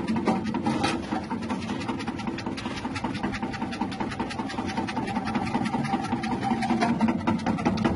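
Electric chip-slicing machine with a 180-watt motor running steadily, a low hum under a fast, even clatter.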